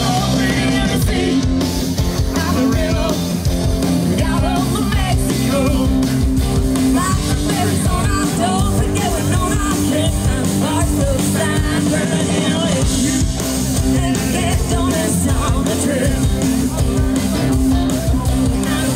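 Rock music with guitar and singing, loud and steady throughout.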